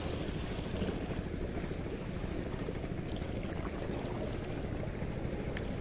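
Steady wind rumble on the microphone over open sea, with the low wash of the water.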